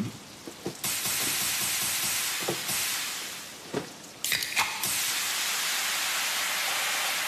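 Loud, steady hissing sound effect that starts about a second in and fades away around the middle. It comes back abruptly with a few short sharp blips and then holds steady.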